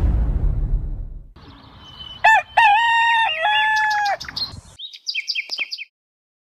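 A low boom that fades out over the first second, then a rooster crows once, long, about two seconds in, followed by small birds chirping in quick runs.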